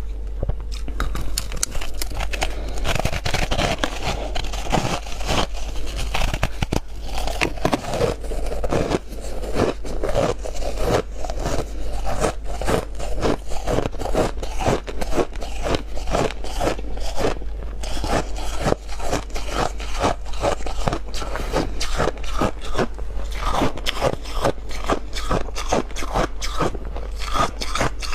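Close-miked crunching and chewing of big mouthfuls of freezer frost, with rapid crackling crunches that go on without a break.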